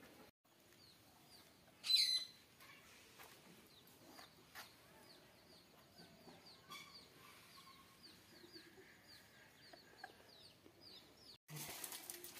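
Birds chirping over and over, several short high chirps a second, with one much louder bird call about two seconds in. Near the end there is a burst of rustling as dry twigs and leaves are handled.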